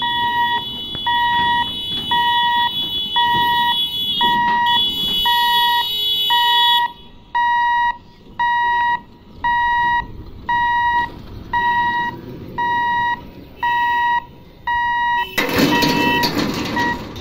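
Level-crossing warning buzzer beeping steadily about once a second as the gate barriers come down. A steady high electronic tone sounds along with it for the first seven seconds or so. Near the end a loud rushing noise swells up over the beeps for about two seconds.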